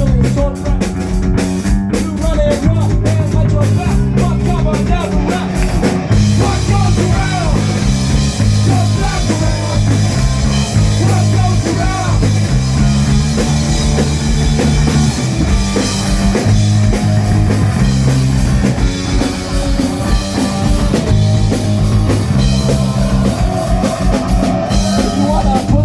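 Live punk-rock band playing: drum kit, distorted electric guitar and a loud bass line moving between notes.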